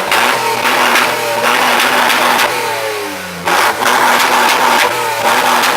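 Car engine revving hard through its exhaust. The revs fall away about two and a half to three and a half seconds in, then the engine is revved loudly again.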